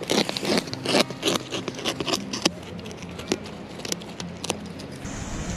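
American beaver gnawing a stick close up: irregular crunching and scraping of its teeth on the wood. Near the end the crunching stops and a steady hum takes over.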